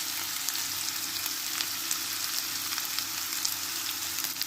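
Chopped onion and garlic frying in hot rendered pork fat in a pan: a steady sizzle with many small crackling pops.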